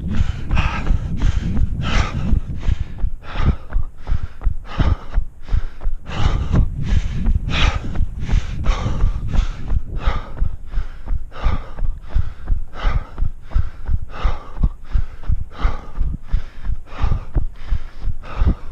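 A runner breathing heavily mid-run, with steady footfalls at about three steps a second and a constant low rumble underneath.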